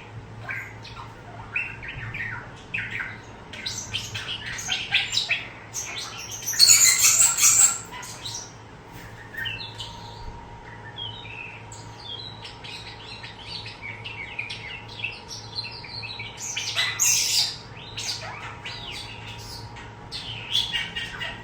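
European starling chattering, a varied run of short whistles, squeaks and clicks. A loud harsh squawk lasts about a second and a half, starting about six and a half seconds in, and another loud call comes about seventeen seconds in.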